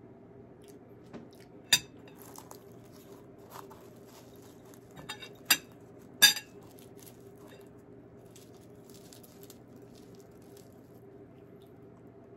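Tableware clinking: three sharp clinks, one about two seconds in and two around five and a half to six seconds, with a few softer taps between, over a steady low hum.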